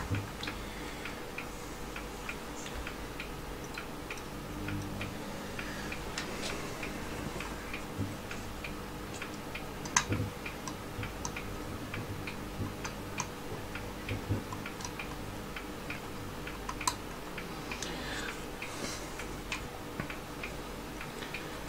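Steady, evenly paced ticking, about two ticks a second, over a low hum, with a few louder small clicks, the loudest about ten seconds in.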